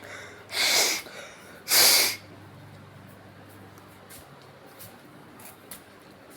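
Two short rubbing, hissing strokes about a second apart, followed by a few faint ticks.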